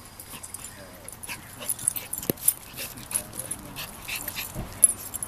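A Schipperke and a black Labrador puppy play-fighting: short dog vocalisations over a run of quick rustling clicks from their paws and bodies scuffling in wood chips.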